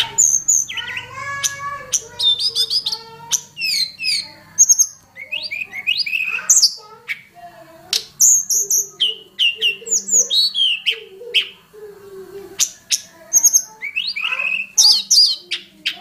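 Tledekan gunung, a Cyornis blue flycatcher, singing a rapid run of varied high whistles, slurred notes and quick trills with short breaks between phrases. This is a lure song of the kind used to attract the species and to tutor caged songbirds.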